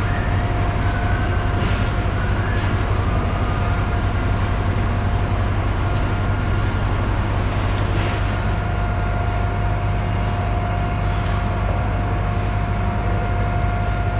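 Steady machinery drone of a ship's engine room, a constant low hum with a steady whine over it, with a few faint clicks of handling.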